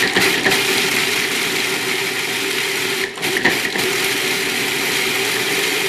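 Food processor motor running, chopping pecans and dates into coarse crumbs, with a short dip about three seconds in as it is pulsed.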